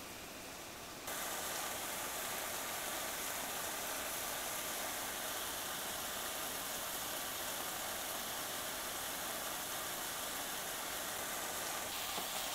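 Spicy marinated pork sizzling steadily in a frying pan over a portable gas burner, the sizzle starting about a second in.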